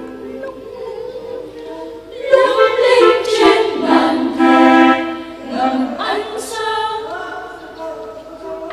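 Choir singing a hymn with instrumental accompaniment; the voices grow louder about two seconds in.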